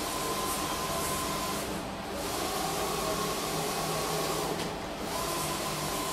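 A machine running steadily with a hum and hiss. A faint high whine cuts out and comes back about every three seconds, twice within these few seconds.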